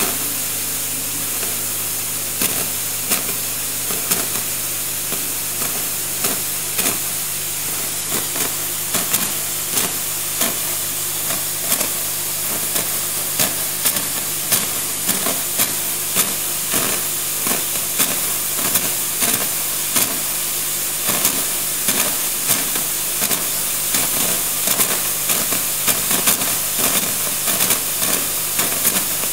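Gaggia Classic Pro espresso machine's steam wand venting steam in a steady hiss, with the vibratory pump's steady low hum underneath as it feeds water into the boiler for steam boost. Irregular spitting pops come more and more often from about ten seconds in.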